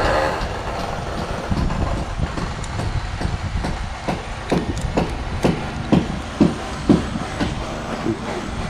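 A steady low rumble, and from about halfway in a run of regular knocks, about two a second, as work goes on at the column formwork.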